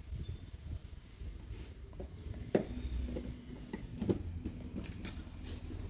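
Stack of glass bangles clinking against each other a few times as they are handled, over a low rumble of handling noise.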